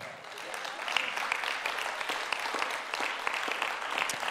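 A crowd applauding, many hands clapping together; the clapping builds over the first second and then holds steady.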